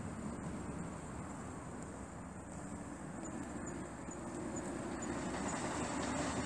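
Steady rumble of motor traffic on the road, growing louder about five seconds in as a vehicle approaches. A short series of faint high peeps comes about half a second apart in the middle.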